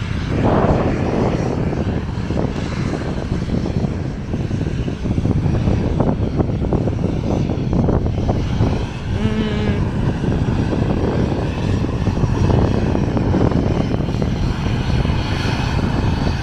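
Airliner jet engines running on the airfield, mixed with strong wind buffeting the microphone, which gives an uneven, gusting rumble throughout.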